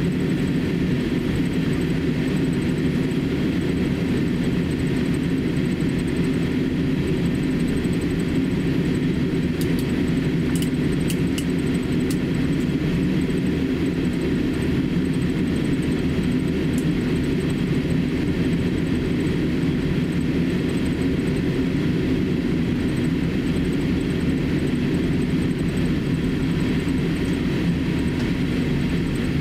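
Steady low rumble inside the cabin of a Boeing 787-8 airliner as it taxis, from its engines at taxi power and the cabin air system. A few faint clicks come about ten to twelve seconds in.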